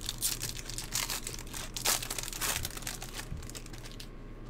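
Trading card pack wrapper crinkling and tearing as it is ripped open and handled, in a series of quick rustles that die down near the end.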